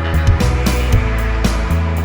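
Background music with drum hits over a sustained bass.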